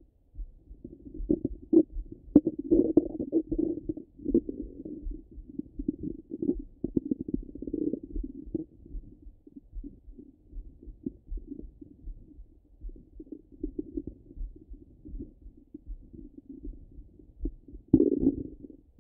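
Stomach and bowel gurgling heard through a stethoscope on the belly: a near-continuous run of short gurgles and rumbles, with a louder rumble near the end.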